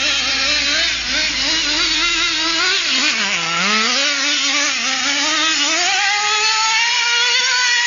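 HPI radio-controlled car's small two-stroke engine revving up and down as the car drives. It drops low a little over three seconds in, then climbs to a high, held pitch near the end.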